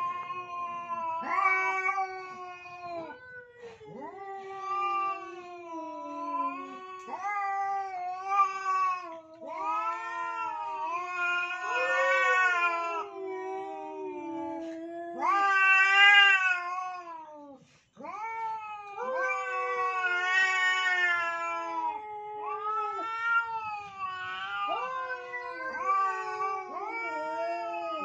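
Domestic tomcats caterwauling in a standoff over a female: long, wavering yowls that rise and fall in pitch, following one another almost without pause. The calls briefly stop about two-thirds of the way through.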